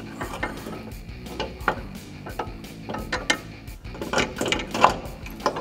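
Irregular metal clinks and knocks as a coil-spring front strut assembly with a leveling spacer on top is handled and worked up into its mount in the wheel well, with a run of louder knocks about four to five seconds in.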